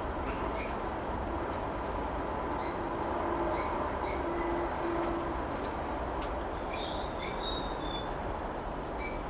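Steady background hiss with faint short high chirps of birds now and then, and a few soft low coos near the middle.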